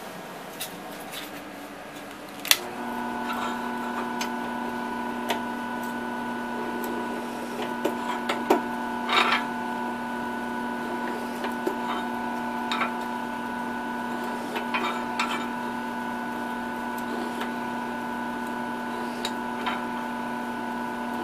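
Benchtop drill press motor running with a steady hum while its cutter bores counterbores into a metal mounting plate, with scattered clicks and scrapes of cutting and chips. The hum starts with a sharp click a couple of seconds in.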